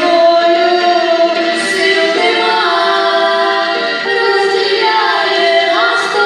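Two women's voices singing a Ukrainian song together in harmony, holding long notes.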